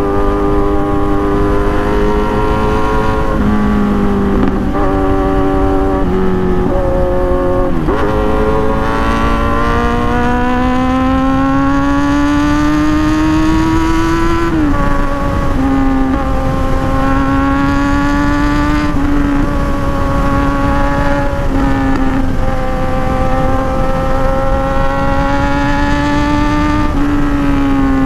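Kawasaki Z900's inline-four engine through a full-system exhaust, ridden at speed. The engine note dips a few times, then rises for about six seconds under hard acceleration and drops sharply at an upshift, settling into a steady high cruise. Wind rushes on the microphone throughout.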